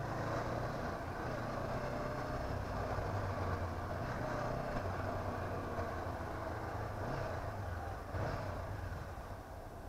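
Honda CB500F motorcycle's parallel-twin engine running steadily on the move, under road and wind noise, with a brief louder swell about eight seconds in.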